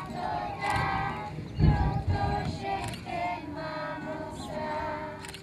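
A group of young children singing a song together with a woman's voice, to acoustic guitar accompaniment. A brief low thump comes about a second and a half in.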